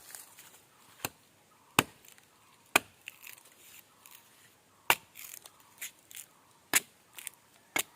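A dao (machete) chopping into a tree trunk to cut off pieces of bark: about six sharp blows at uneven intervals.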